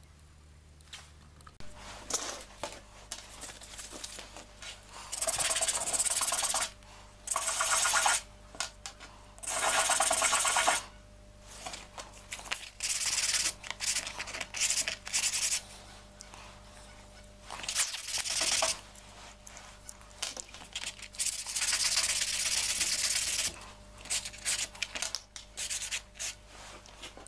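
Small turned wooden beads being sanded by hand on a sheet of sandpaper: scratchy back-and-forth rubbing in runs of a second or two, stopping and starting several times.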